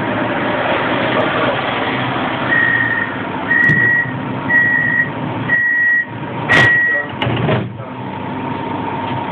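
Pesa 120Na Swing tram's door-closing warning: five evenly spaced high beeps about a second apart, then the door shuts with a thump near the end, over the steady hum of the tram interior.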